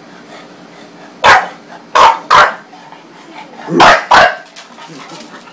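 English bulldog barking: five short barks, the last four in two quick pairs.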